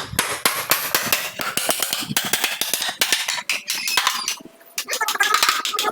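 Carpentry work on a wooden door frame: a dense run of rapid, irregular clicks, knocks and scraping, easing briefly a little past four seconds in.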